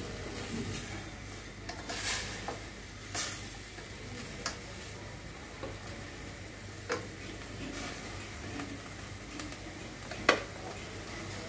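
A slotted spatula stirring and scraping cauliflower and carrot pieces in a stainless steel pot, with a low sizzle of the vegetables cooking in a little oil and water. Scattered short knocks of the spatula against the pot, the sharpest near the end.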